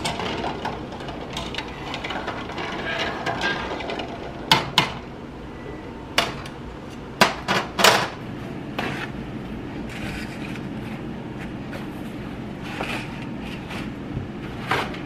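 Water boiling in a stainless steel pan of eggs, with sharp clinks of a metal slotted spoon against the pan and eggs several times about halfway through as the eggs are lifted out. Softer rustling of paper towels near the end.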